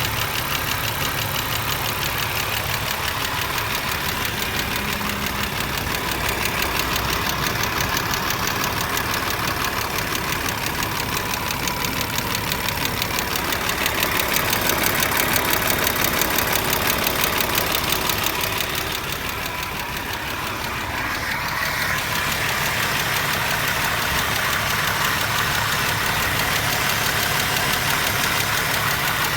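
BMW M50/M52 straight-six engine running with a fast, steady knock that the owner cannot trace to its cause, a knock that comes and goes on its own. The engine gets somewhat louder about halfway through and dips briefly a little later.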